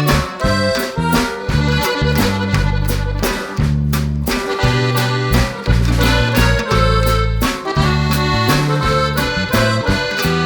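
Background music led by an accordion over a bass line that moves in held notes.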